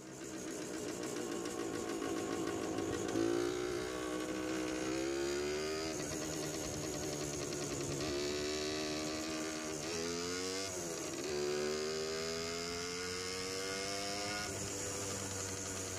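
Hodaka Wombat's 125cc single-cylinder two-stroke engine under way, its pitch climbing again and again as the bike accelerates and dropping back at each gear change, about four times, then settling to a steadier note near the end.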